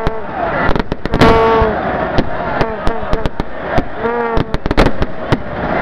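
Firecrackers going off in rapid, irregular strings of sharp bangs amid a stadium crowd's voices.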